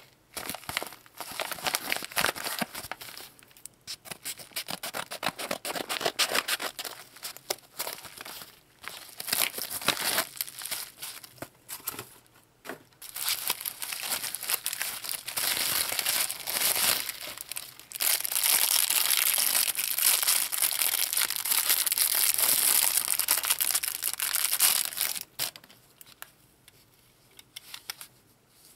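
Bubble wrap and clear plastic packaging crinkling and rustling as hands unwrap it, in irregular bursts, with a louder unbroken stretch of crinkling about two-thirds of the way through that stops suddenly.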